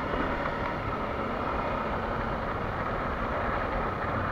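Kawasaki Versys-X 300's parallel-twin engine running steadily as the motorcycle rides along a dirt road, heard from a helmet-mounted camera with road noise.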